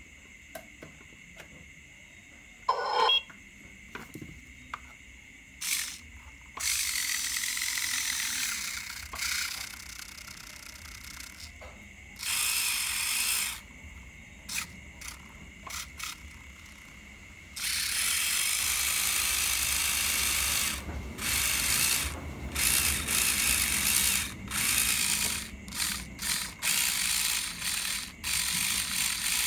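The small electric can motor of a Huina 1582 RC dump truck drives the rear axle's gearbox in runs of a few seconds, a noisy gear whir that starts and stops abruptly. The last run breaks into short spurts near the end.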